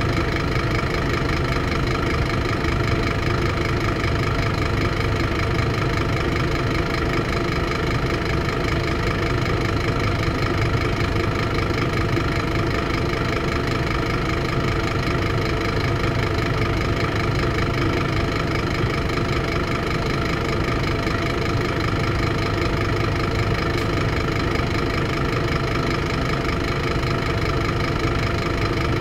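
Scania DC9-16-230 nine-litre five-cylinder diesel engine of a Scania K230UB bus running steadily at an even speed, with no revving up or down.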